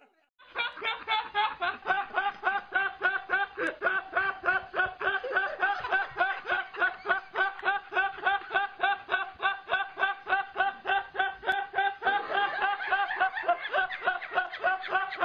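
A young man laughing uncontrollably in a fast, even string of high-pitched bursts, about four or five a second, starting about half a second in.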